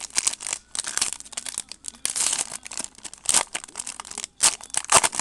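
Plastic wrapping crinkling and tearing in irregular bursts as a sealed box of trading cards is unwrapped by hand.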